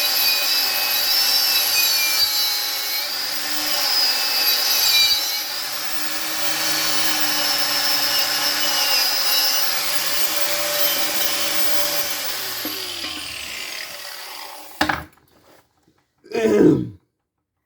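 Power grinder abrading the steel of a tire iron to strip its paint, with a steady motor hum under the grinding noise. The motor then spins down with falling pitch about twelve seconds in, followed by a knock and a short low sound.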